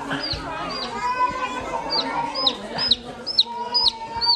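Baby chicks peeping: a run of short, high cheeps, about two or three a second, several birds overlapping.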